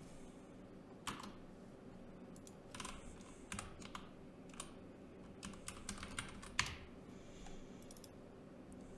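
Computer keyboard being typed on in short, irregular keystrokes as a password is entered, with scattered clicks, the sharpest about six and a half seconds in, over a faint steady hum.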